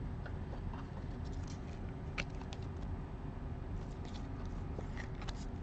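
Faint light clicks and rustles of a trading card and a clear plastic card holder being handled, a few scattered ticks over a steady low hum.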